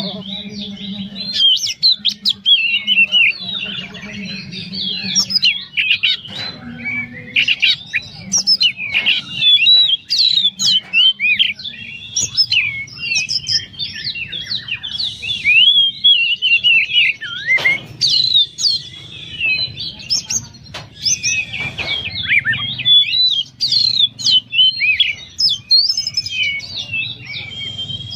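Oriental magpie-robin (kacer) singing a long, unbroken, rapid song of varied whistles, chirps and slides, densely packed with phrases mimicked from other birds.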